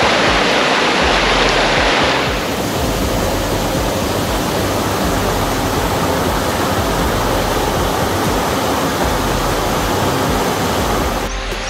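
Steady rushing noise, as of flowing water. It drops a little in level and brightness about two seconds in.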